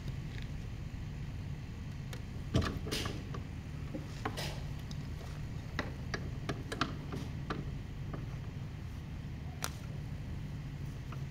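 Hand tools clicking and knocking against the metal jet pump housing of a personal watercraft while its propeller is being worked loose: irregular sharp clicks, the loudest about two and a half seconds in. A steady low rumble runs underneath.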